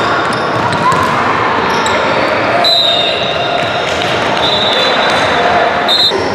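Referee's whistle blowing a few short, high blasts from about three seconds in, stopping play, over a steady din of voices in a gymnasium.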